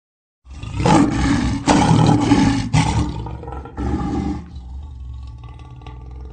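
Lion vocalizing: about half a second in, four loud, rough roars in quick succession, then a quieter, lower growl that carries on.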